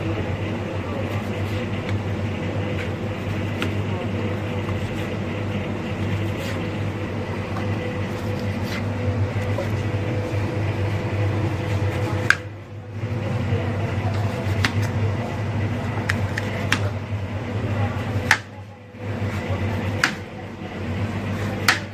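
Knife tapping on a plastic cutting board as lemons are sliced: irregular sharp clicks every second or two, over a steady low machine hum.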